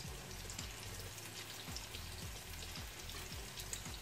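Tortang talong, an eggplant omelette with minced meat, frying in oil in a non-stick pan. It makes a steady sizzle with small, irregular crackles and pops.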